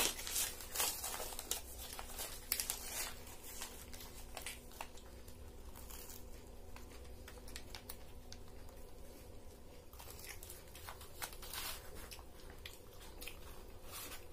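Paper wrappers crinkling and rustling as egg rolls are handled and peeled open, in bursts of crackles during the first few seconds and again about ten seconds in.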